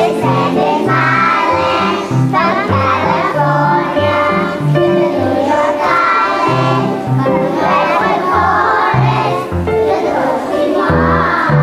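A group of young children singing together in unison with an instrumental accompaniment that moves in held bass notes.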